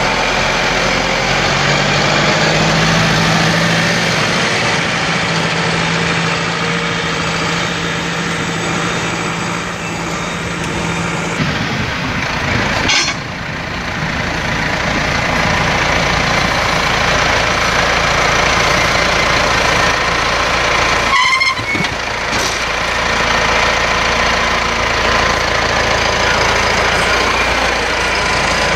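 Massey Ferguson 5711 tractor's four-cylinder diesel running steadily as the tractor drives across the field with its front loader. The sound breaks off abruptly about 12 and 21 seconds in, then carries on.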